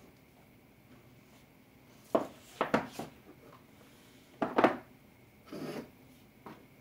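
Handling noises: short knocks and clatters of hard objects being picked up and set down, in two clusters about two seconds in and about four and a half seconds in, then a softer rubbing sound.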